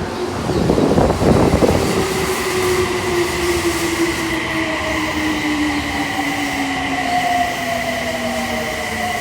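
Toei Mita Line subway train pulling into the platform: a loud rush of noise about a second in, then the electric motors' whine falling slowly and steadily in pitch as the train brakes, over a steady high squeal.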